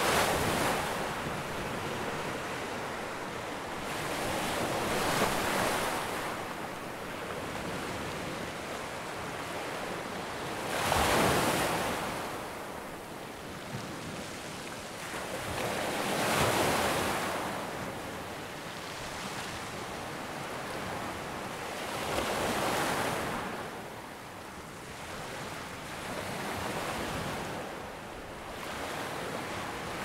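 Ocean surf washing onto a beach, swelling and fading in waves about every five to six seconds.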